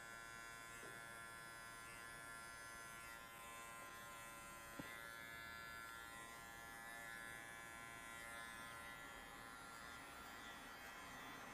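Electric pet grooming clipper fitted with a guard comb, running with a faint steady buzz as it trims a Yorkshire terrier's matted coat.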